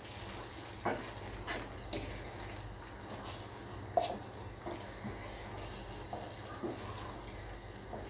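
Thick egg curry gravy simmering in a pan as butter melts into it, stirred with a spoon, with light knocks and pops at irregular intervals.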